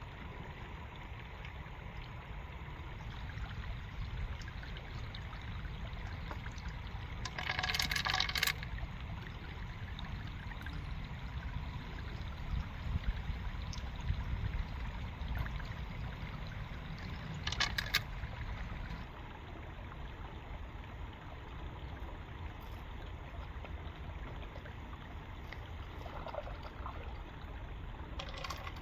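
Shallow water trickling over rocks in a small stream, with small splashing sounds as a hand reaches into the water to pick snails off the wet rock. Two brief, louder noises stand out about ten seconds apart.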